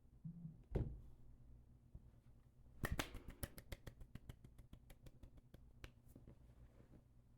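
A new smartphone being handled: a single knock under a second in, then from about three seconds a quick run of light clicks, about six a second, that fades out after about three seconds.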